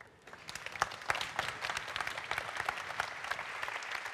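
Audience applauding, many hands clapping at once, building up over the first half second and then holding steady.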